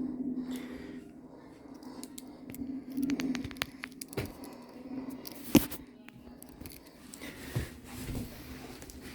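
Swiss Army knife cutting packing tape and cardboard to open a box, with scattered scrapes and clicks and one sharp click about five and a half seconds in.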